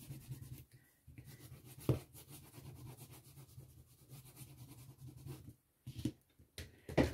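Caran d'Ache wax pastel crayon rubbing across paper as colour is laid on, with a few light clicks, the loudest near the end.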